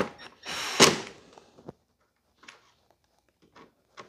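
Cordless drill-driver running briefly, driving in a screw to fasten a lawn mower's engine shroud, about a second in, followed by a few faint clicks.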